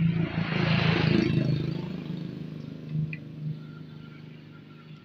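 An engine running, with a steady hum; it is loudest about a second in and then fades away.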